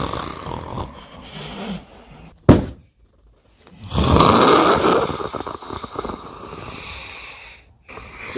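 A person snoring: one long snore fading away, a short sharp burst, a pause, then a second long snore starting about four seconds in.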